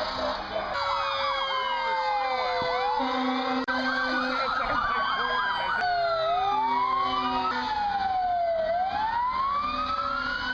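Several emergency-vehicle sirens wailing at once, their pitches sweeping slowly up and down and crossing each other.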